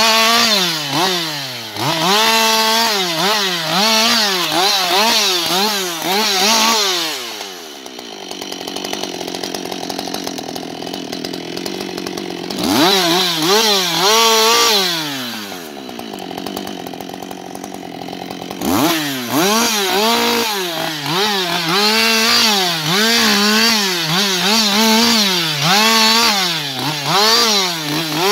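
Husqvarna 560 XP two-stroke chainsaw limbing a felled tree: the engine revs up and drops back in quick succession, about once a second, as each branch is cut. Twice it falls back to idle for a few seconds, about a third of the way in and again just past halfway, before the quick revving resumes.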